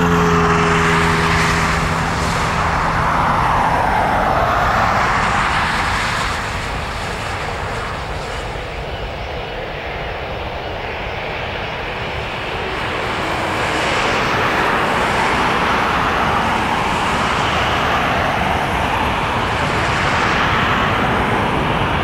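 Boeing 737-900ER's CFM56-7B turbofan engines at takeoff thrust: a loud, continuous jet roar as the airliner rolls, lifts off and climbs away. Low steady engine tones dip slightly and fade in the first few seconds, and the roar sweeps slowly up and down in tone.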